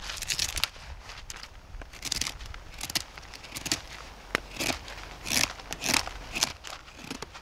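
Dry deadwood crackling and crunching as it is broken and handled: an irregular run of short snaps and scrapes.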